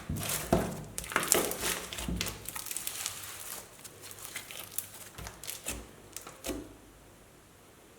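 Crunchy slime being squeezed and pressed, a dense run of crackles and pops that thins to scattered clicks and dies away about six and a half seconds in.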